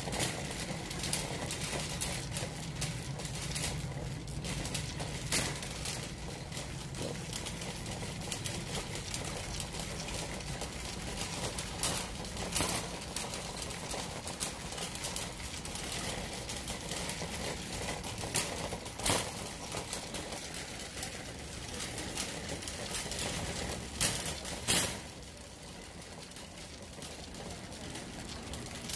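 Metal wire shopping cart being pushed over a concrete floor, its wheels and basket rattling with irregular clicks and knocks over a steady low hum. Two sharper knocks come in quick succession late on.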